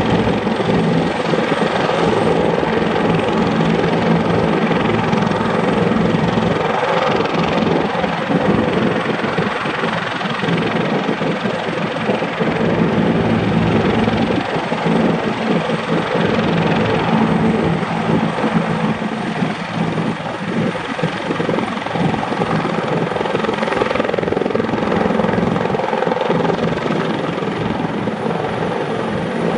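Bell 412HP helicopter running with its rotor turning: its twin turboshaft engines give a steady whine over the rhythmic chop of the four-blade main rotor. The high whine rises a little near the end as the helicopter starts to lift off.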